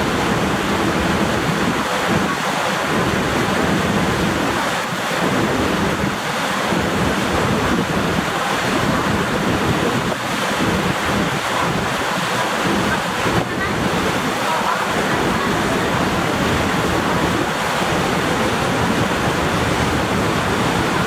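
Steady rushing noise of wind buffeting the microphone over choppy harbour water, mixed with the wash and spray of a waterjet fireboat running at speed.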